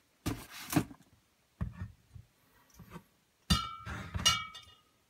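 Glass bottles set down on a wooden table, giving two sharp clinks about a second apart that ring briefly. Before them come a few softer knocks and rustles as a cardboard box is moved.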